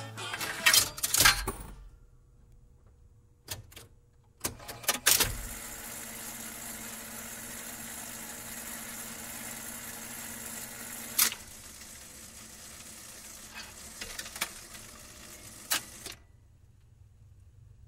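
Jukebox changing records: a few sharp mechanical clicks and clunks, then a steady hiss with a low hum and scattered clicks.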